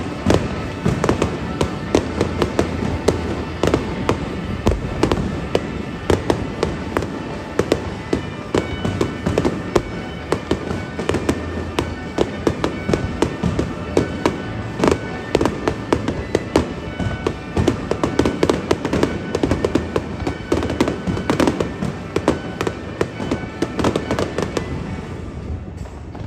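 Fireworks display going off in a dense, continuous barrage of rapid pops, crackles and bangs from many bursting shells and rising comets. It thins out and drops away near the end.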